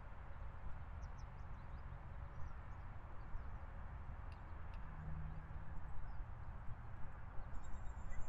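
Faint outdoor ambience: a steady low rumble with scattered small high bird chirps, and a short high bird trill near the end.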